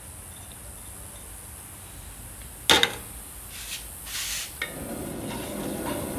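A sharp knock of kitchenware against the pot, then chopped onions going into hot oil and starting to sizzle steadily about three-quarters of the way in.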